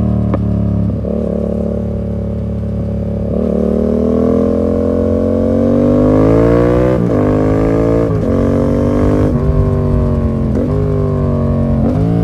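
Yamaha MT-07 parallel-twin engine through an SC Project full exhaust with the dB killer removed, under acceleration. After a couple of short sharp blips near the start, the revs climb in one long rising pull. Then comes a run of upshifts, the pitch dropping and climbing again about four times.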